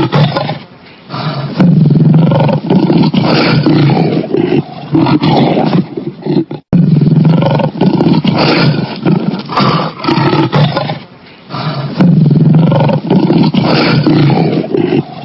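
Lion roaring: a series of loud, deep roars with short breaks between them. There is a brief dropout about two-thirds of the way through, after which the same sequence of roars repeats.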